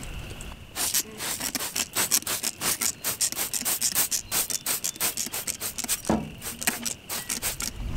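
Hand trigger spray bottle squeezed over and over in quick succession, each squeeze a short hiss of spray onto the engine, with a brief pause about six seconds in.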